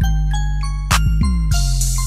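Background music: a beat with heavy bass, sharp percussion hits and bell-like mallet notes.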